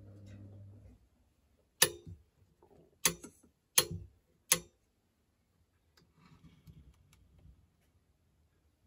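A steady hum stops about a second in, then four loud, sharp mechanical clicks about a second apart come from the AM-88 military HF power amplifier's controls.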